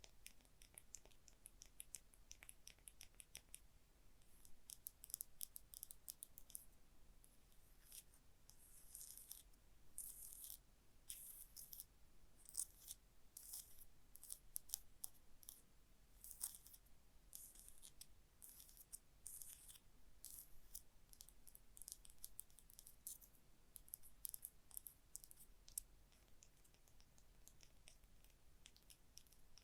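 Gentle ASMR tapping and scratching on small objects: a quiet, continuous stream of light, quick irregular taps and short scratches.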